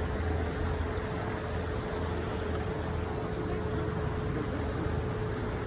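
Tour boat's motor running steadily under way on the canal, a low even hum with a faint steady tone over it.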